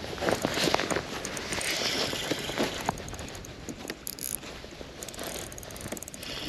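Spinning fishing reel being worked, with rapid mechanical clicking and rattling over wind noise on the microphone.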